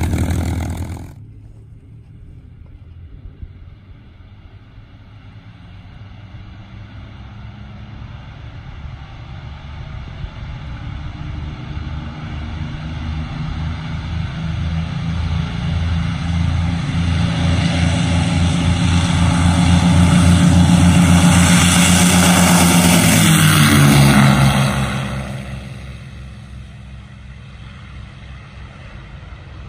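North American XP-82 Twin Mustang's two V-12 piston engines at takeoff power. After a loud second of the engines close by, the sound is distant and builds steadily for about twenty seconds, then drops in pitch and fades quickly.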